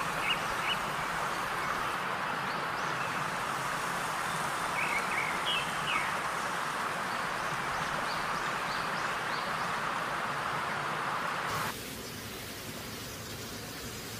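Outdoor ambience: a steady rushing background noise with scattered short bird chirps. The rushing noise drops off abruptly near the end, leaving quieter background with a few more chirps.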